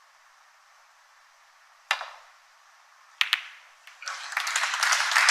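Snooker ball clicks: a single sharp click about two seconds in as the cue ball is struck, then a quick double click of balls colliding about a second later. Audience applause then rises from about four seconds in.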